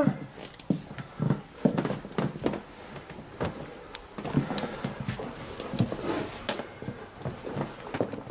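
Scattered soft knocks, thumps and fabric rustling from towels and a knitted dog cover being handled around a dog lying on its bed, with a louder swish about six seconds in. A short dog vocalization is heard right at the start.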